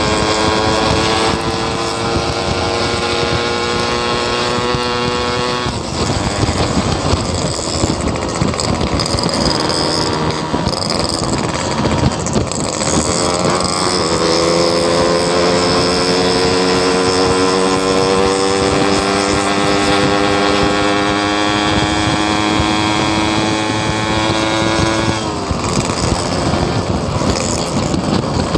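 Yamaha RX-King two-stroke motorcycle engine under way, its pitch rising slowly as it pulls for about six seconds. A noisier stretch follows where the engine tone fades, then a second long, slow rise in pitch of about eleven seconds that breaks off near the end.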